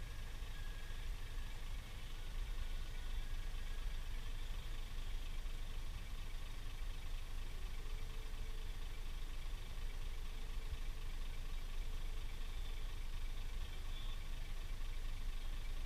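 Scania truck's diesel engine running steadily, a low even drone with no change in revs.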